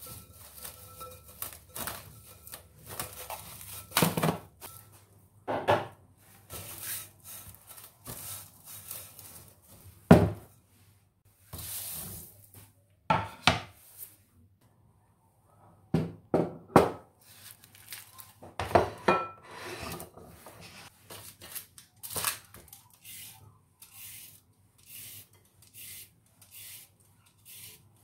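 Objects being handled on a hard surface: scattered knocks, taps and rubbing or rustling, with a sharp knock about ten seconds in.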